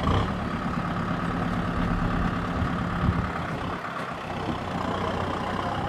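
Farm tractor engine running steadily, with a brief knock about three seconds in.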